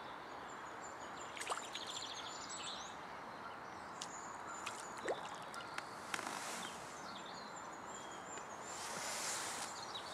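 Outdoor lakeside ambience: small birds chirping and singing over a steady background hiss, with a few faint clicks and a short rush of hiss near the end.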